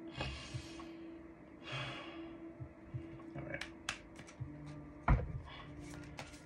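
Tarot cards being shuffled and handled: two soft swishes in the first two seconds, then a run of light card clicks and taps, with one louder thump about five seconds in.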